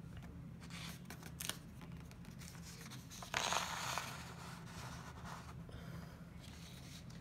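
A sheet of paper being slid and rustled by hand, with a few soft clicks about a second in and one longer rustle about three and a half seconds in, over a low steady hum.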